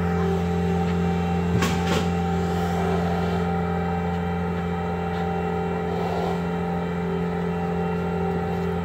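Compact track loader's engine idling steadily at one unchanging pitch, with a couple of brief knocks about two seconds in.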